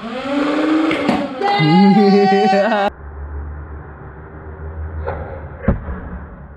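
A person's drawn-out voice for about three seconds. Then a low steady hum, a small click and, near the end, a sharp crack as a Nerf foam-ball blaster is fired at a plastic water bottle and knocks it off.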